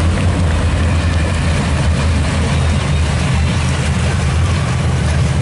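Pack of dirt late model sedans' V8 engines rumbling steadily at low revs as the field rolls around the oval at pace speed, with no revving up or down.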